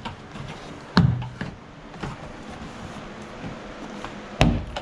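Plastic door-card retaining clips on a 1994 Subaru STi rear door popping out as the panel is pried off: two sharp pops, about a second in and near the end, with a few fainter clicks between.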